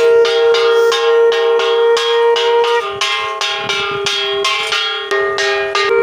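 A conch shell (shankha) blown in a long, steady held note, with a brass puja hand bell rung rapidly at about three strokes a second throughout.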